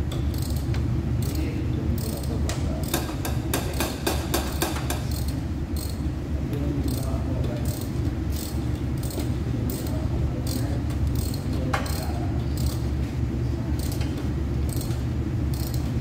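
Metal parts and tools clinking and clicking as they are handled, with a dense run of quick clicks a few seconds in, over a steady low machine hum.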